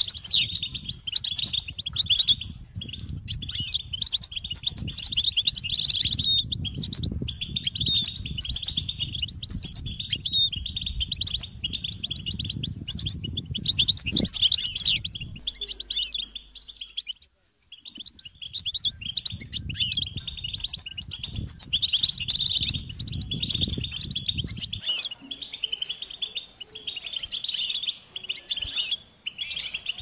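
European goldfinch singing: fast, continuous twittering and chirping notes, breaking off briefly a little past halfway. A low background rumble under the song stops near the end.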